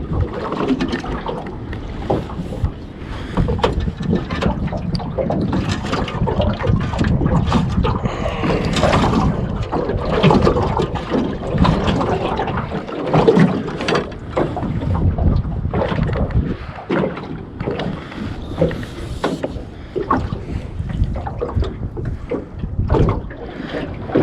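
Wind buffeting the microphone and water slapping against a small boat's hull, with many short knocks and handling sounds scattered through.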